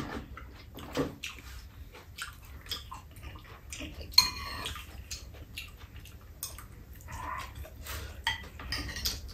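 Metal spoons and chopsticks clinking and scraping against ceramic bowls while eating, in scattered light taps, with one louder clink that rings briefly about four seconds in.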